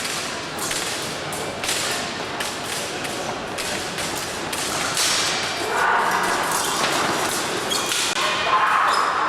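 Épée fencing bout: irregular sharp knocks and stamps from the fencers' footwork on the piste, with blade contacts, repeated all through.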